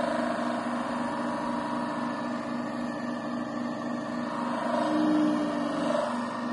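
Flat-hone sharpening machine running with a steady hum while a curved grooming shear blade is ground freehand against its spinning disk to raise a burr. The sound swells for about a second around five seconds in.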